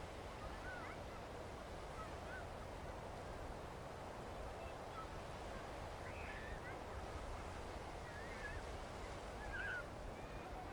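Steady rush of sea and wind along a beach, with birds giving short squeaky calls several times over it.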